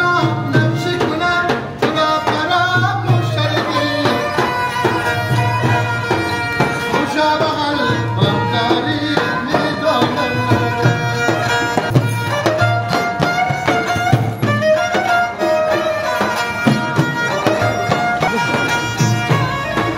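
Live Afghan folk music: a bowed spike fiddle (ghichak) playing a winding melody over steady beats on a hand-struck frame drum.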